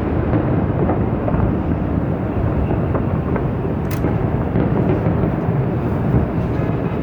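Fireworks bursting in a dense, continuous rumble of overlapping booms, with a sharper crack about four seconds in.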